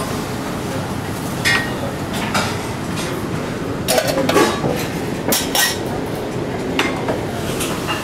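Restaurant kitchen clatter: scattered clinks and knocks of metal spoons and utensils against porcelain plates and pans, some ringing briefly, over a steady background noise.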